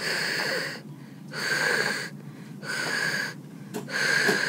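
A voice repeating the Spanish "jota" sound, a raspy voiceless hiss made at the back of the throat, four times about a second apart, as a letter-sound drill.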